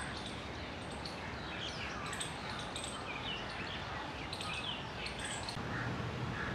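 Outdoor ambience: a steady hiss with scattered short, high chirps and tweets of small birds.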